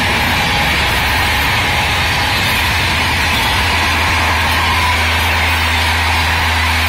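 Train noise: a steady rush of wheels on rail from passing coaches. From about four seconds in, the steady low hum of a diesel locomotive's engine grows stronger as a locomotive approaches.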